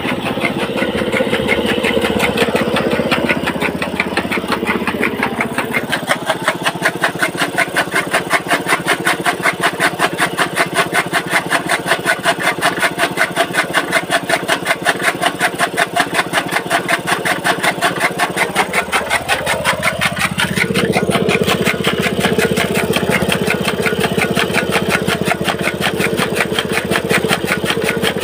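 Small petrol engine running a belt-driven toka (chaff cutter) that chops green fodder, with a fast even pulse. About two-thirds of the way through the engine note rises and then runs smoother.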